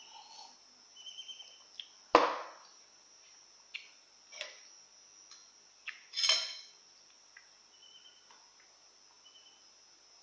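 Tableware on a table: a loud sharp knock about two seconds in, a ringing glassy clink about six seconds in, and a few softer clicks between. Short high chirps repeat faintly over a steady faint high whine.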